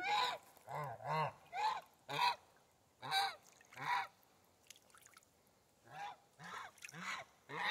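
Geese honking: a run of short honks, roughly two a second, with a pause of about a second and a half past the middle.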